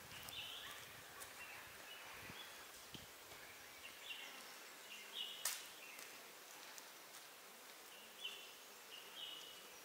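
Faint forest ambience: a steady hiss with short high-pitched calls every second or two, and one sharp click about halfway through.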